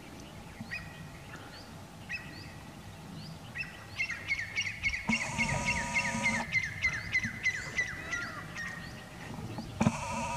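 Birds chirping: many short, quick downward chirps, sparse at first and busier from about four seconds in. A longer call with a wavering tone comes in twice, about midway and near the end.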